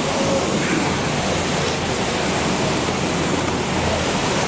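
Waterfall and the stream below it rushing through a narrow rock gorge: a steady, even roar of falling and running water.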